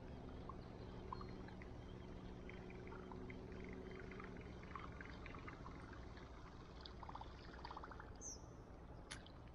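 Quiet lakeside ambience: a faint steady low hum that fades out about halfway, with scattered faint high chirps and a single click near the end.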